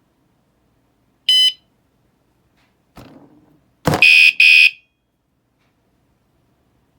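Wsdcam vibration-sensor bike alarm: a short beep a little over a second in, then a faint knock, then a thump and two loud high beeps in quick succession. This is the alarm's warning chirp on being jostled.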